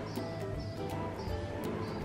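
Background music with a light, regular beat, quieter than the talking around it.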